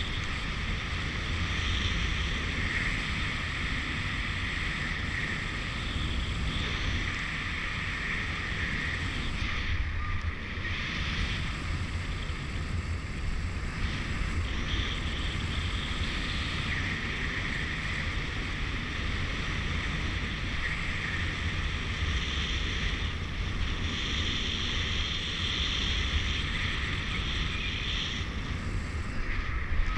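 Steady wind rushing over the microphone of a camera carried on a paraglider in flight: a low rumble with a hiss that swells and eases every few seconds.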